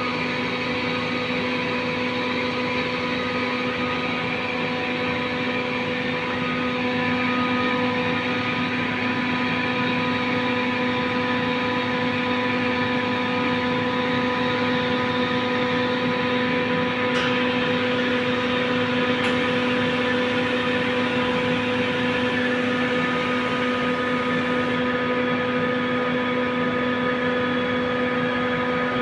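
Compressor machine running steadily, a constant motor hum with a fixed pitch over a noisy drone.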